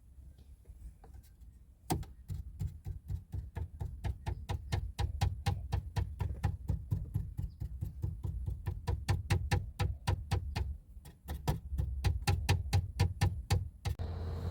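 Rattle from the instrument cluster of a 2022 Mitsubishi Outlander: rapid sharp clicks, about five a second, over a steady low rumble. It starts about two seconds in, pauses briefly near eleven seconds and stops just before the end, the sign of something loose in the cluster.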